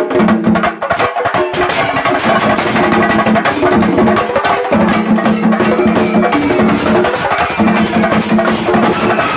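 A chenda drum ensemble beaten with sticks in a fast, dense shinkari melam rhythm.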